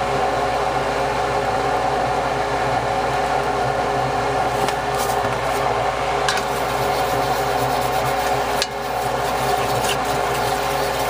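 A steady mechanical hum with a hiss over it, while butter and flour bubble into a roux in a cast iron Dutch oven. A few light clicks, typical of a wooden spoon touching the pot, come about five, six and nine seconds in.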